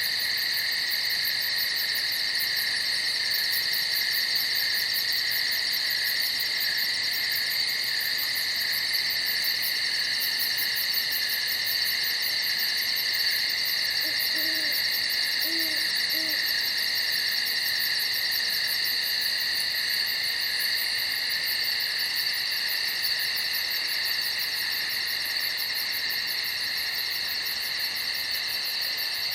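Night chorus of crickets chirping steadily, a dense, unbroken high trill with a fast pulsing on top. About halfway through, three faint short low hooting notes sound beneath it.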